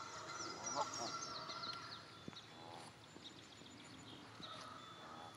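Canada geese giving short calls a few times: about a second in, near three seconds and near the end. High thin chirps come in quick succession in the first second and a half.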